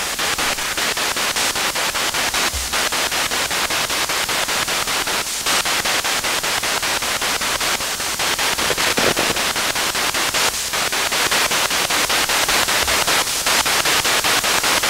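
Homemade Wonder Box spirit box played through a small amplifier speaker, giving a steady hiss of radio static chopped into rapid regular pulses as it sweeps. It gets a little louder about halfway through and again near the end.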